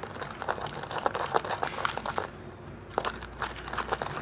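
Sticky toothpaste-and-salt slime mixture being squeezed and pulled apart by hand, giving quick irregular crackling clicks. The mixture is still too sticky and has not set into slime.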